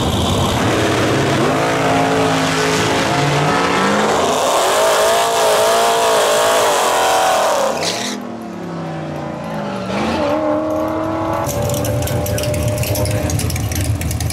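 Drag-strip cars: an engine revs hard and pulls up through rising steps in pitch over heavy noise. About halfway there is a tire-smoking burnout by a Dodge Challenger, its engine revving while the rear tires spin. Near the end a drag car's engine idles.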